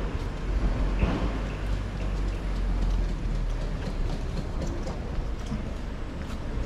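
City street background noise: a steady low rumble, like traffic, with a few faint ticks.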